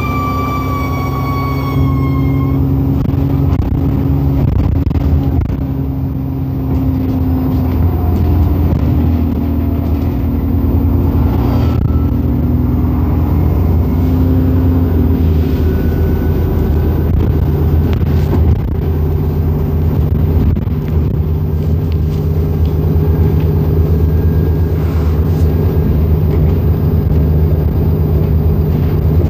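Alexander Dennis Enviro400 double-decker bus heard from a passenger seat inside: the diesel engine's steady drone as the bus drives, its pitch stepping several times as it changes speed. A falling whine dies away in the first two or three seconds.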